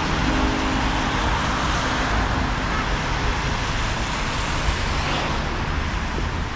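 City road traffic: a steady rush of cars passing on a snowy street.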